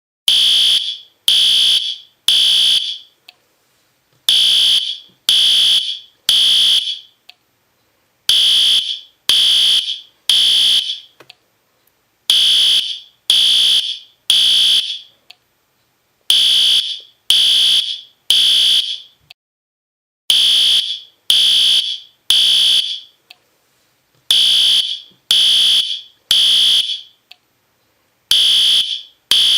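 System Sensor P2R fire alarm horn strobe sounding in the temporal-3 evacuation pattern: three loud, high-pitched horn blasts about a second apart, then a pause, with the group repeating every four seconds.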